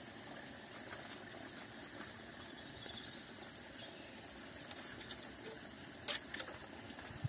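Dry branches rustling and twigs cracking as they are pulled and broken off by hand, with a couple of sharper snaps about six seconds in, over a faint steady background hiss.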